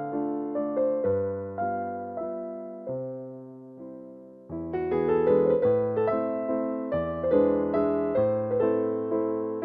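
Background keyboard music: gentle piano notes that thin out and fade toward the middle, then come back fuller and steadier from about halfway through.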